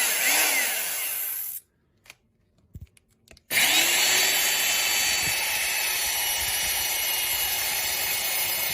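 Steady whirring noise like a small power tool or motor running. It cuts out about a second and a half in, leaving near silence with a few faint clicks, then starts again about three and a half seconds in and runs on steadily.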